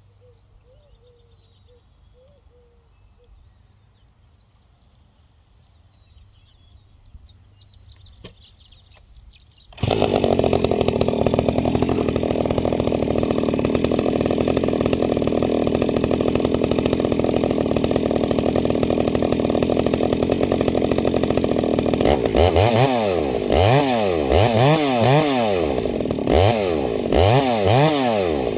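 Husqvarna 390 XP two-stroke chainsaw, shop-ported and fitted with an aftermarket Ramhorn muffler, comes in suddenly and loud about ten seconds in and runs steadily. Near the end it is revved up and down several times. Faint birdsong before it starts.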